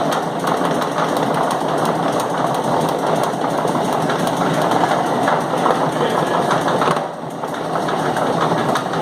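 Chain-driven machine running with a continuous knocking rattle. An especially loud knock comes about six seconds in. The uploader thinks the loud knocks come round with the chain, which takes about a minute for a full revolution.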